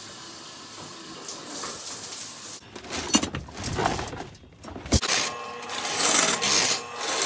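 Drain cleaning machine running, its coiled steel snake cable rasping and rattling as it spins, with a single sharp knock about five seconds in.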